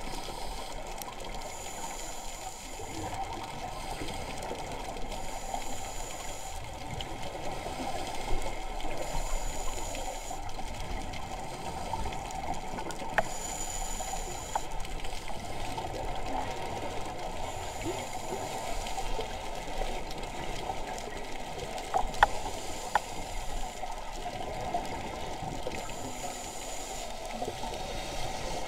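Underwater ambience picked up by an action camera in its housing during a freedive: a steady rush of water noise, with a faint high tone that comes and goes every few seconds and a few sharp clicks, two of them close together later on.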